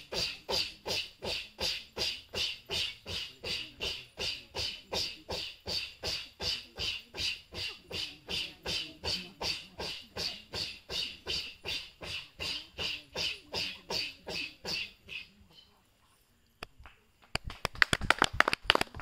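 Goan women's fugdi dance: the dancers make rhythmic blowing breath sounds, about three a second and steady, stopping about fifteen seconds in. Near the end a faster, louder run of sharp hand claps starts.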